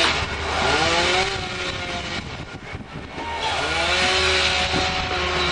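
Two-stroke chainsaw running and revving up, with a quieter dip in the middle before the engine speed climbs again.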